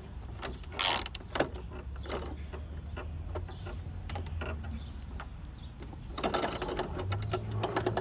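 Small clicks and scrapes as a 14 mm screw is threaded by hand into a Honda HRX mower's wheel hub. About six seconds in, the wheel is spun and clicks rapidly and evenly as it turns.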